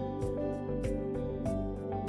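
Background music: plucked guitar notes over a steady beat.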